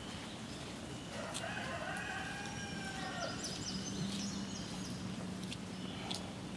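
A rooster crowing once, a call of about two seconds that rises and then falls in pitch, starting about a second in.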